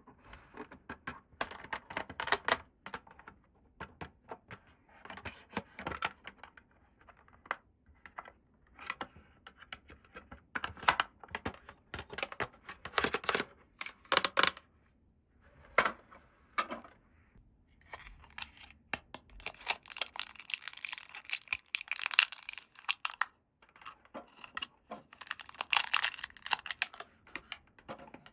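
Small plastic toy pieces and their packaging being handled up close: irregular clicks and taps, with short bursts of rustling and tearing.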